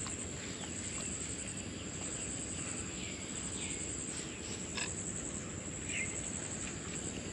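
Insects chirring steadily at a high pitch, with a few faint short chirps and a single light click about five seconds in.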